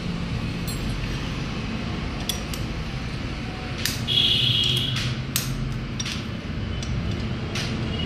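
Scattered metallic clinks and taps of a wrench against the bolts and fins of a TVS Victor motorcycle's cylinder as they are being undone, over a steady low hum. A brief high ring sounds about four seconds in.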